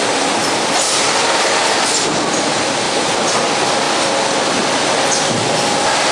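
Steady machinery noise of a bottled-water carton packing line and its conveyors running: an even, constant din with faint humming tones and no clear separate strokes.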